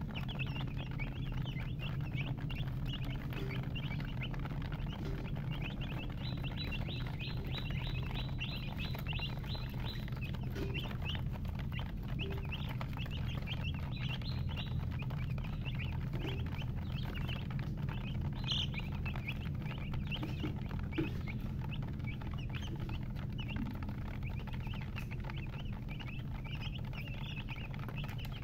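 A brood of baby chicks peeping continuously, a dense overlapping chatter of short high cheeps, over a steady low hum.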